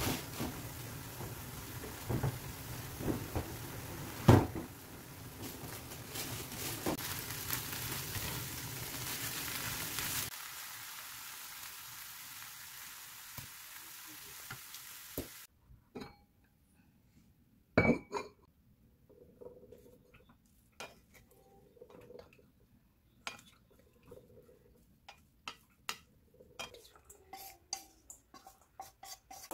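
Gondre greens and perilla seed powder sizzling as they are stir-fried in a nonstick frying pan, with spatula scrapes and taps, while the liquid cooks down. The sizzling stops suddenly about halfway; after that there are only scattered utensil taps, one sharp knock, and small clicks near the end.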